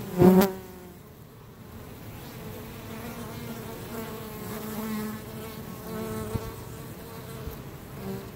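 Honey bees buzzing as they fly about close by, the buzz swelling and fading. Just after the start, one bee passes very close with a brief, much louder buzz.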